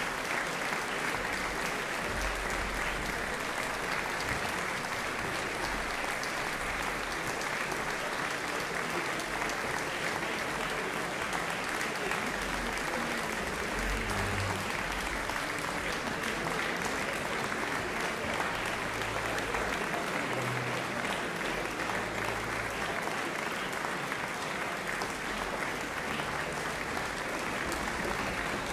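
Concert audience applauding steadily, a dense even clapping that holds at the same level throughout.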